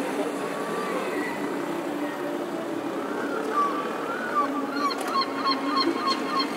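Gull giving its long call over a steady murmur of city traffic: a rising note and a few drawn-out calls from about three seconds in, then a quick series of short, evenly repeated yelps, about three a second.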